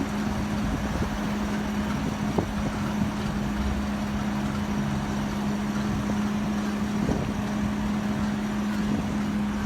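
Steady motor hum with street traffic noise, one constant low tone over a rumbling hiss.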